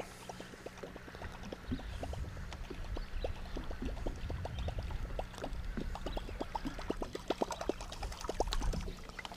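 Lake water lapping and gurgling against the hull of a small fishing boat, in many small irregular plinks, over a faint steady low hum.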